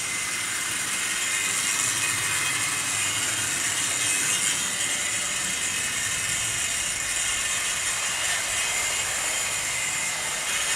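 Tri-ang OO gauge model locomotives running on track: a steady mechanical whirr of their small electric motors and wheels rolling over the rails.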